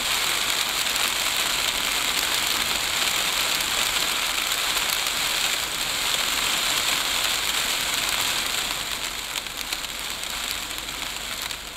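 Wind-blown sand and dust from a dust storm pelting the car, heard from inside the cabin as a steady, rain-like hiss that eases a little over the last few seconds.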